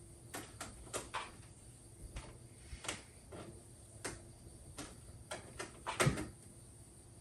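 An irregular series of about a dozen light knocks and clicks, the loudest about six seconds in.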